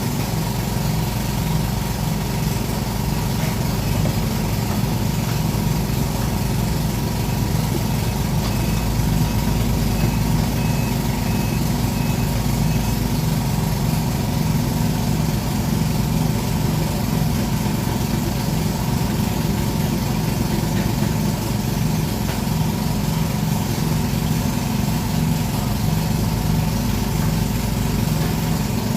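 Sumitomo SH210-5 excavator's diesel engine running steadily at idle. A faint string of short, high beeps sounds from about nine to thirteen seconds in.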